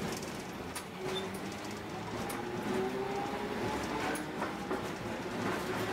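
Tosaden streetcar number 604 running on street track, its traction motors giving a faint whine that rises slowly in pitch as it picks up speed, over a steady rumble of the car. A few sharp clicks and rattles from the wheels and body come through about a second in and again around four seconds in.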